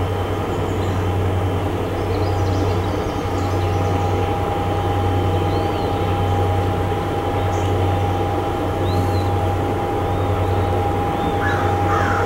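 Low, steady drone of a river towboat's diesel engines, with small birds chirping and a crow starting to caw near the end.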